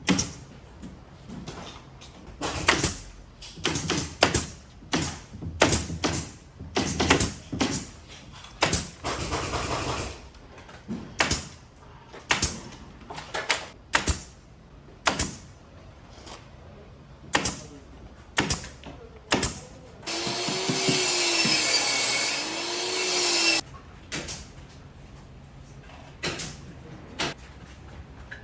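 Carpentry work: a string of sharp knocks and clacks from tools and timber, with a power tool running steadily for about three seconds roughly two-thirds of the way through.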